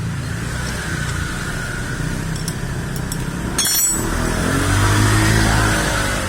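Motor vehicle engines running steadily, with a brief metallic clink a little past halfway. Then one engine swells louder and eases off again, as a vehicle passing close by.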